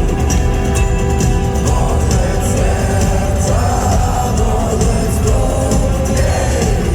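Live rock band playing loudly, with steady drum hits, heavy bass and a voice singing.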